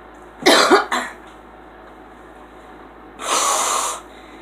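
A woman coughing: a sharp two-part cough about half a second in, then, a couple of seconds later, a breathy hiss lasting under a second.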